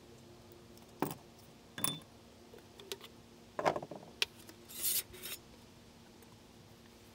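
A few sharp clicks and knocks, as of small hard objects being handled, with a short scraping rustle about five seconds in.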